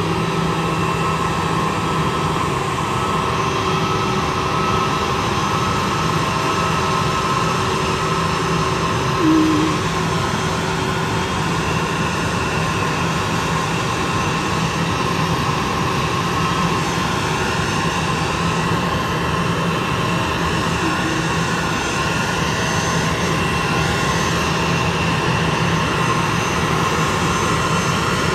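Allegiant Airbus A320's jet engines running at idle as it taxis in to the gate: a steady whine over a low rumble. There is a brief louder blip about nine seconds in.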